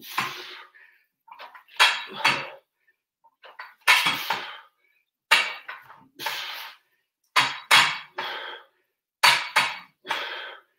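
A person doing sit-ups on an exercise mat: short, sharp bursts of breath and movement noise in time with the reps, often two or three close together, every second or two.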